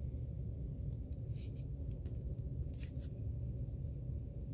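A vinyl LP in a clear plastic outer sleeve being handled and turned over, giving a few brief crinkles of the plastic, over a steady low room hum.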